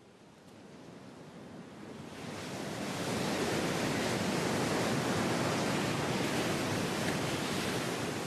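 Ocean surf breaking on the shore, a steady rushing wash that swells up from faint over the first three seconds and then holds.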